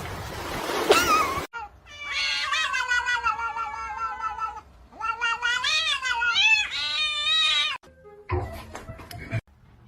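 A cat yowling: three long, drawn-out meows whose pitch wavers up and down.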